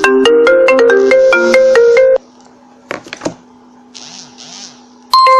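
Phone ringing for an incoming IMO call with an iPhone-style marimba ringtone: a fast run of mallet notes that stops abruptly about two seconds in. Near the end a loud steady beep starts.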